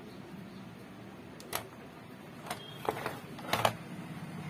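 Several short, sharp clicks and taps, unevenly spaced, the loudest pair near the end: hand tools and parts handled on a workbench during capacitor replacement on a TV circuit board. A faint steady hum runs underneath.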